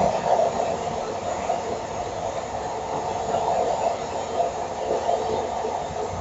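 Electric blender running steadily, mixing a fruit and protein-powder shake.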